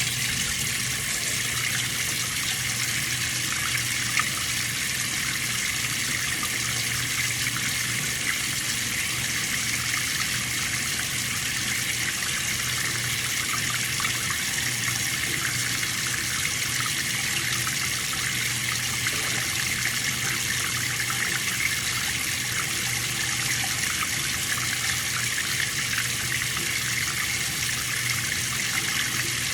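Water running steadily, with a faint steady low hum underneath.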